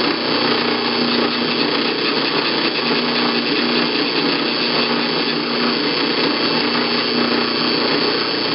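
Drill press running steadily with its motor and belt whine while drilling a hole into aluminum.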